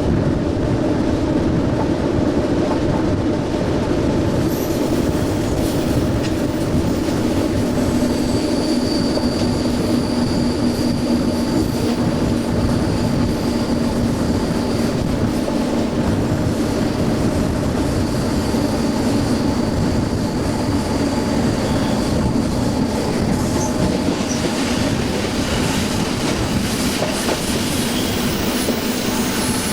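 SNCB AM80 electric multiple unit running along the line, heard from on board: a steady hum from the traction motors over wheel and rail noise, with a faint high whine that comes and goes in the middle.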